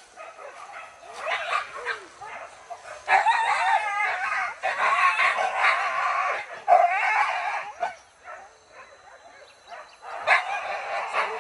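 A pack of hunting dogs in full cry on a wild boar chase, many yelping and baying voices overlapping in high wavering cries. They are loudest from about three to eight seconds in, drop back for a couple of seconds, then rise again near the end.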